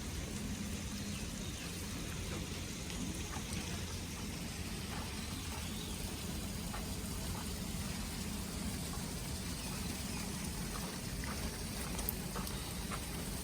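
Water trickling and dripping steadily, with scattered faint ticks and a couple of sharper clicks near the end, over a low steady hum.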